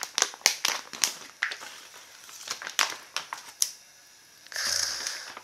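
Plastic food pouch of white kimchi crinkling and rustling as it is opened and handled, with many sharp clicks and crackles. A short wet rush follows about four and a half seconds in as the kimchi is pulled out of the pouch onto a tray.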